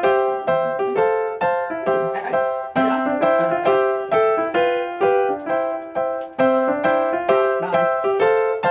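Background music: a simple keyboard melody of single struck notes, about two a second, with a short phrase that repeats every few seconds.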